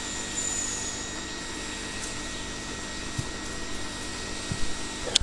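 Steady background hum and hiss, with a few faint clicks about three seconds in and near the end.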